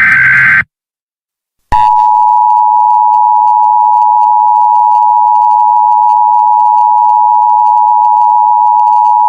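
Emergency Alert System header: the last short burst of SAME digital data tones, a harsh warbling screech, cuts off. After about a second of silence the EAS attention signal starts: a loud, steady two-tone beep, two tones sounding together and held without change.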